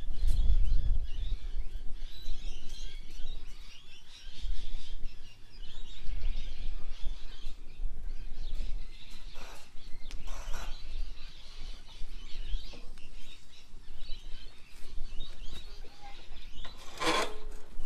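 Birds chirping and calling over a steady low outdoor rumble, with a short loud noise near the end.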